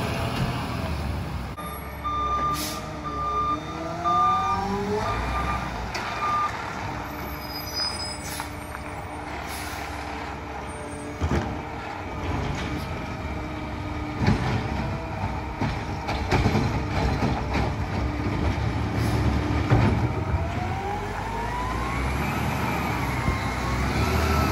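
Peterbilt 520 garbage truck with a McNeilus ZR side-loader body maneuvering: its engine revs up and down, and a reversing beeper sounds for a few seconds near the start. Several short, sharp air releases from the brakes come through the middle, and the engine revs again near the end as the truck pulls away.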